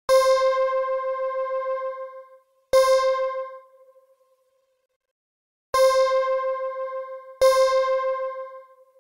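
A synthesizer patch in the Arturia OP-Xa V plugin plays the same note four times. Each note has a bright attack that fades out over one to two seconds, with a fast tremble in its loudness.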